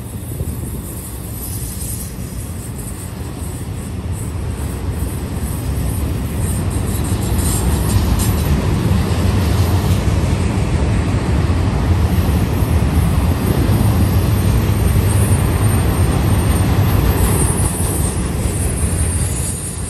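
Autorack freight cars rolling past close by: a steady rumble of steel wheels on the rails. It grows louder a few seconds in and eases a little near the end.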